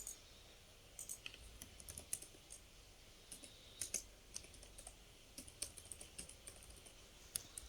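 Faint, irregular clicking of keys typed on a computer keyboard, as figures are entered for a calculation.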